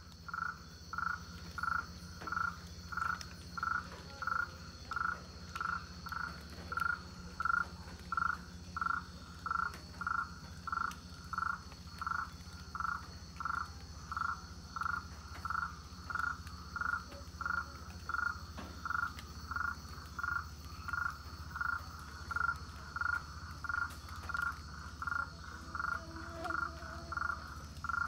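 Amazon rainforest frog calling in a long, very regular series of short notes, about two a second, over a steady high insect drone and a low hum.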